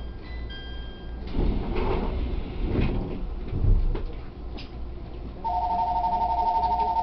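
Passenger doors of an E127 series electric train sliding along their tracks, ending in a heavy thump as they meet. About two-thirds of the way through, a steady two-note electronic tone starts and holds.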